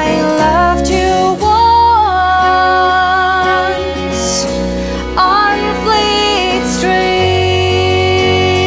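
Small band playing a slow song: electric bass, drums with cymbals and archtop guitar, under a melody of long held notes that slide from one pitch to the next.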